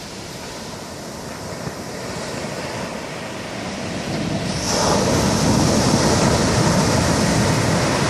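Big ocean breakers crashing on the beach. The surf noise builds slowly, then about halfway through a wave breaks and becomes a loud, sustained rush.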